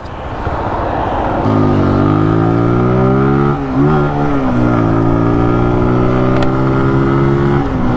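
Zontes 155 cc single-cylinder scrambler engine accelerating under way. The revs climb steadily, drop briefly at a gear change about three and a half seconds in, then climb again before falling away near the end. Wind rushes over it in the first second or so, before the engine note comes up.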